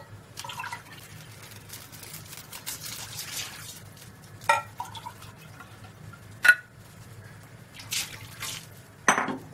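Water poured into a steel kadhai, splashing and trickling in two pours, the second near the end. Three sharp clinks fall in between.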